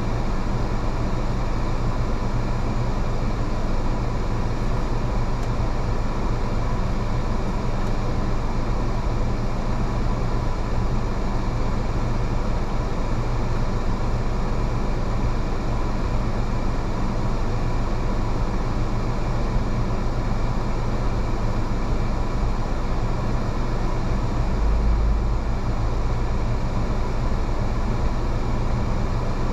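Steady low drone of a car driving, with engine and tyre noise heard from inside the cabin, and a brief deeper rumble near the end.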